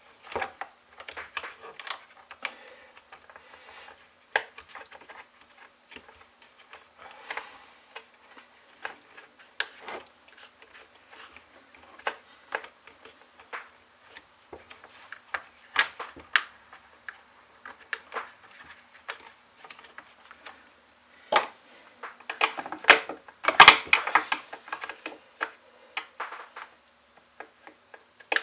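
Irregular light clicks, taps and small scrapes of hands and small tools working on a chainsaw's housing while a new fuel line is worked into place. A busier, louder stretch of clattering and scraping comes near the end.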